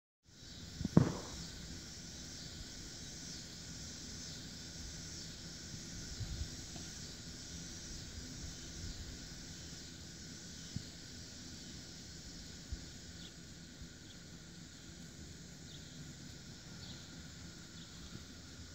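Steady high-pitched hiss of insects in open country, with one loud thump about a second in and a few faint scattered knocks.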